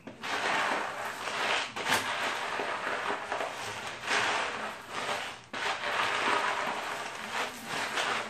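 A plastic spoon stirring a dry mix of Cheerios, M&Ms and dry-roasted peanuts in a plastic tub. The pieces rattle and rustle against each other and the tub in several uneven swells, with a few sharp clicks.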